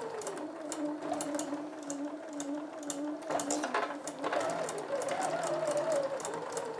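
Bernina sewing machine stitching fabric pieces: the motor hum drops and rises in pitch as the sewing speed changes, with a run of fine needle ticks.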